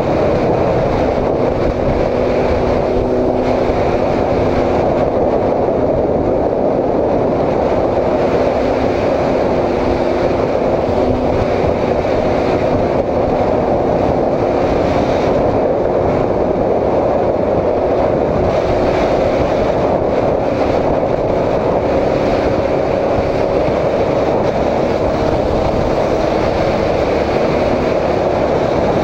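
Honda CB750 cafe racer's inline-four engine running steadily at road speed, with wind rushing over the microphone.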